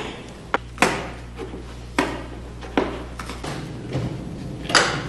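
Scattered knocks and rustles of a convertible soft top being handled and peeled off its metal frame, about one a second, with a longer scraping rustle near the end.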